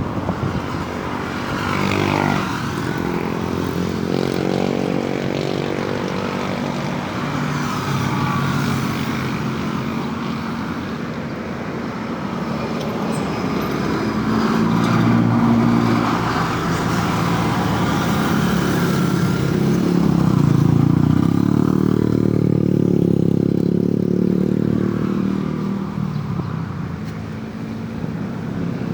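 Road traffic passing: several vehicle engines going by one after another, their pitch rising and falling as each approaches and passes.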